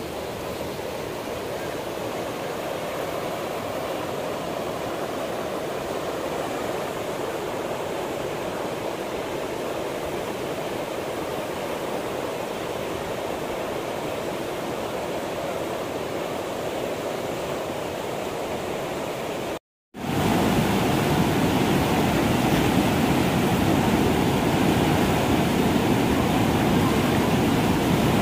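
Whitewater river rapids rushing: a steady hiss of fast, broken water. About two-thirds of the way through it cuts out for a moment and comes back louder and deeper.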